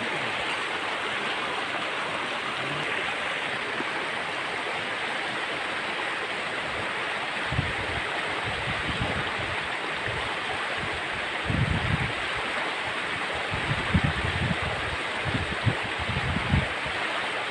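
Shallow river water running over rocks: a steady rush. From about halfway, irregular low sloshing bumps come in on top.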